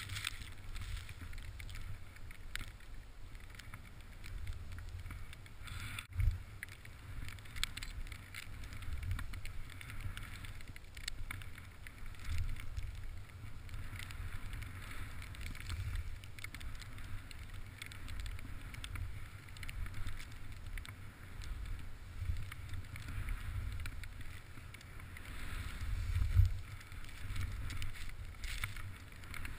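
Wind rumbling on the body-mounted camera's microphone over the hiss of deep powder snow spraying as the rider descends, with a sharp knock about six seconds in and a louder surge of rumble near the end.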